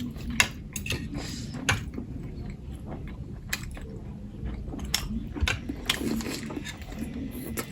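Eating sounds: chewing, with scattered sharp clicks and taps.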